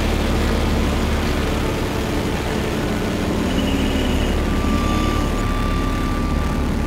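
Polaris RZR side-by-side's engine running steadily as it drives, a continuous low drone.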